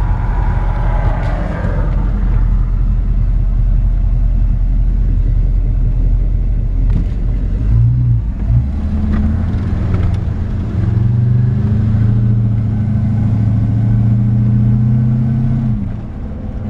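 1936 Chevrolet half-ton truck's engine running on the road, heard from inside the cab with road noise. About eight seconds in the engine note grows stronger and rises slowly in pitch, then falls away near the end.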